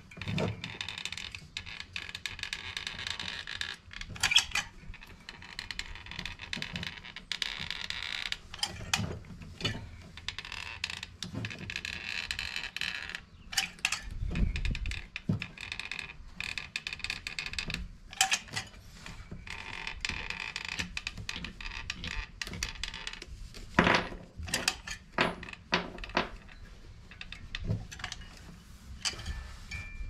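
Manual caulking gun squeezed repeatedly to push silicone sealant out around a cable entry, its trigger and plunger rod clicking and clacking at irregular intervals, with a few louder knocks.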